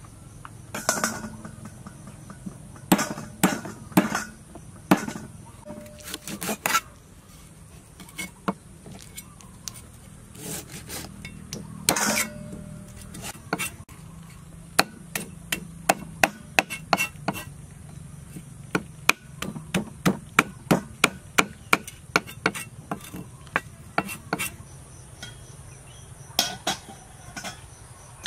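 Knife scraping the scales off a Boeseman croaker on a wooden chopping block: a string of sharp scrapes and knocks, coming about two or three a second for several seconds around the middle.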